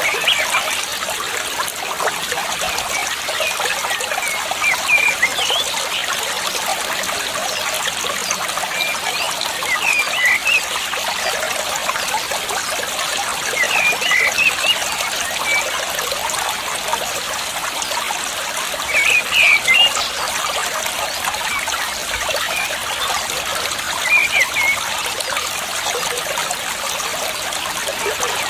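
Steady trickle of running water, with brief clusters of short high calls about every five seconds.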